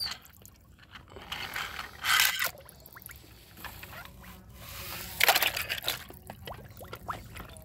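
Toy vehicles splashing into a shallow plastic tub of water: a splash about two seconds in, then a louder one about five seconds in as a plastic toy car-transporter truck tips off the edge into the water, with light scraping and water lapping between.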